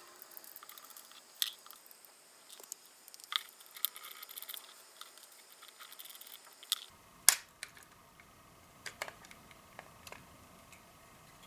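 Small screwdriver working screws out of a compact Sony digital camera's metal casing: faint scraping with scattered sharp clicks of the tool and metal parts, the loudest about seven seconds in.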